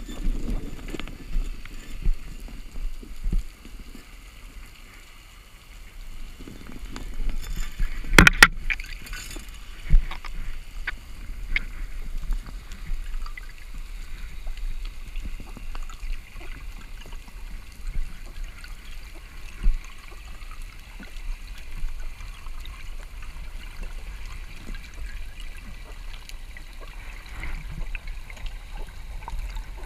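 Underwater ambience heard through a camera housing: a steady low rumble and hiss of moving water with scattered small clicks, and a sharp cluster of loud clicks or knocks about eight seconds in.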